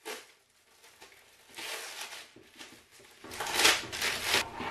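Plastic packaging rustling and crinkling as a pack of vinyl sheets in a clear sleeve is handled: quiet at first, then a short spell of rustling about two seconds in and a louder, longer one about a second and a half later.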